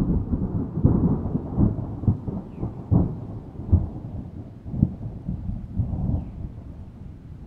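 A thunderclap that breaks suddenly, then rolls on as a low rumble with irregular crackling peaks, fading over several seconds.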